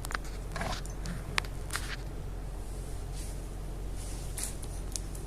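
Light, irregular clicks, taps and brief scrapes of hands handling a laptop's internal parts and small components, over a steady low hum.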